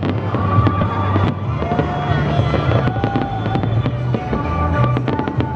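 Aerial fireworks going off in quick succession: many sharp bangs and crackles over a continuous low rumble, picked up by an old iPod touch's small microphone.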